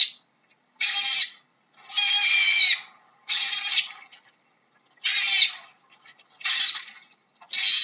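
Otter calling: a run of six high-pitched calls, each under a second long, repeating about once a second.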